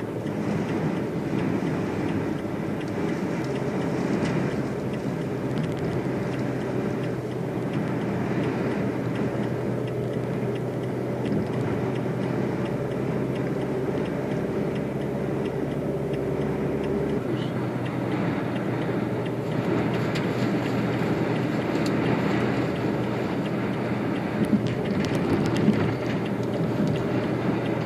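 Steady engine and road noise of a car being driven at speed, heard from inside the cabin. Two short knocks come near the end.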